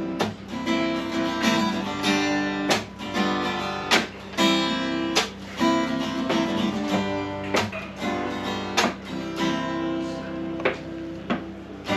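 Acoustic guitar strummed in a steady rhythm without vocals, a strong accented strum about every second and a quarter with lighter strums between.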